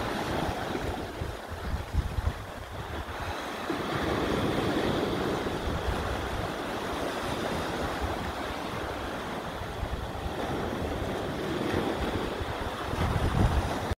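Sea surf washing against the rocks below, with gusts of wind buffeting the microphone, strongest near the end.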